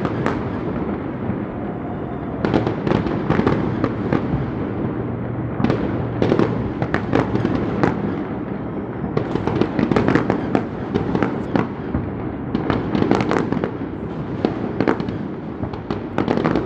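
Fireworks display going off continuously: volleys of rapid bangs and crackles, one after another with short lulls between them, over a steady low rumble.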